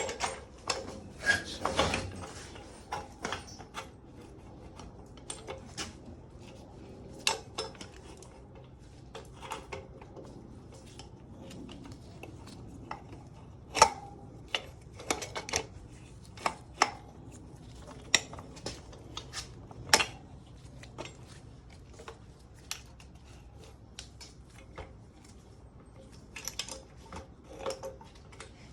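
Hand tools and metal parts clinking and tapping at irregular intervals during work on a motorcycle wheel's rotor and sprocket bolts, with a few sharper metallic clanks, the loudest about halfway through.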